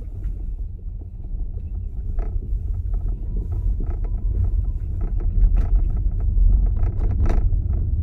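Car driving: a low, steady road rumble with scattered light clicks and knocks over it, growing louder toward the end.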